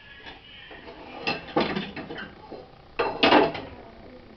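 Metal kitchenware clattering: sharp clanks of steel utensils being set down and moved on a counter, a cluster about a second and a half in and another, louder one near three seconds.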